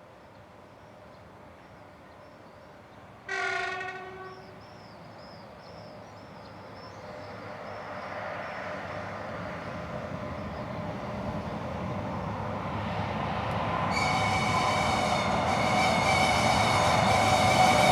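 VL85 electric locomotive gives one short horn blast about three seconds in. Then the approaching freight train's rumble grows steadily louder, and a steady high whine of several tones joins about fourteen seconds in as it nears.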